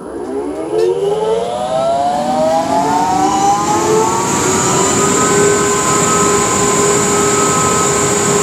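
Laminar flow hood blower switched on and spinning up: a whine that climbs in pitch over the first few seconds, then settles into a steady hum with rushing air.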